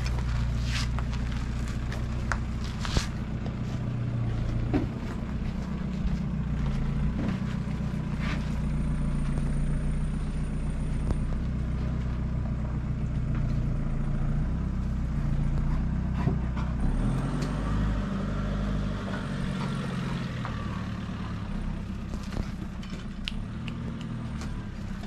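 An engine running steadily, its low hum stepping to a different pitch a few times, with a few sharp clicks in the first seconds.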